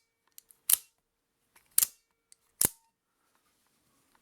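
Out-the-front automatic knife being fired and retracted: three sharp snaps of the blade about a second apart, with faint clicks of the thumb slider between them.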